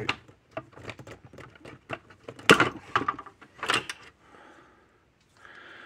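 Rapid clicks and knocks of fence energizer parts being handled and pushed as a part that will not seat is worked into place, the two loudest knocks about two and a half and nearly four seconds in. A faint steady hiss follows near the end.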